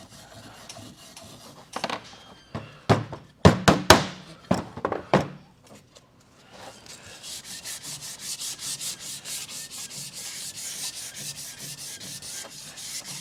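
A handful of sharp wooden knocks as burned white-oak pieces are handled. Then 320-grit sandpaper is rubbed back and forth over the Lichtenberg-burned wood by hand, at about three strokes a second.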